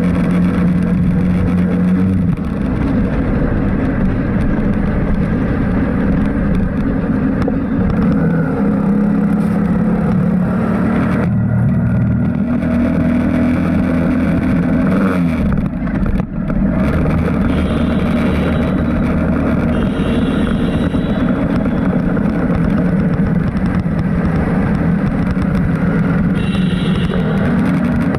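A road vehicle's engine running while driving, with road and wind noise. Its pitch steps up and down a few times as the speed changes.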